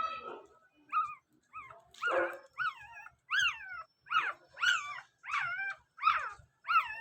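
Cocker spaniel puppies whining and yelping: a string of short, high-pitched cries, each falling in pitch, about one and a half a second, growing louder after the first couple of seconds.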